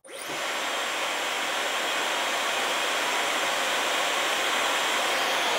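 Genuine Dyson Supersonic hair dryer switched on, coming up to speed within a fraction of a second, then blowing steadily: an even rush of air with a faint high-pitched whine.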